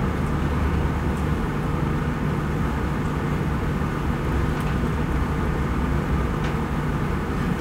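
Steady low room hum with a faint constant tone underneath, the machine-like background drone of a lecture hall, with a couple of faint ticks.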